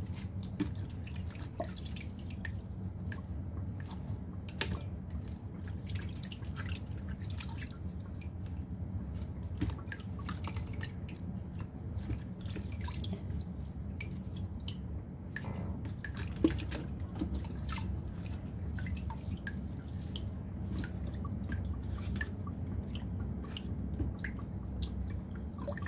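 Hands washing cabbage leaves and a tomato in a plastic bowl of water in a stainless steel sink: water dripping and sloshing with many small splashes and wet leaves being rubbed. A steady low hum sits underneath, and there is one sharper tick about 16 seconds in.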